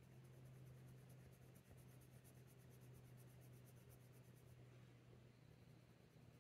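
Faint scratching of a Faber-Castell Polychromos coloured pencil on hot-press watercolour paper in quick, evenly repeated short strokes, stopping about four and a half seconds in, over a low steady hum.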